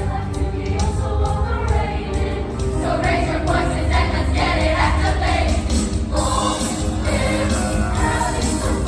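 A choir singing with instrumental accompaniment and a steady beat.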